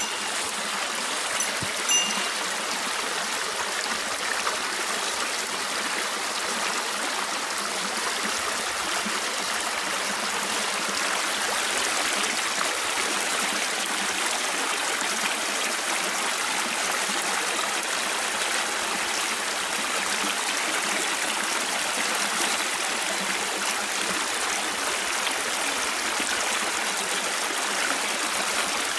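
Small mountain stream running steadily over rocks, a constant rushing and trickling of water. About two seconds in there is a brief high chime.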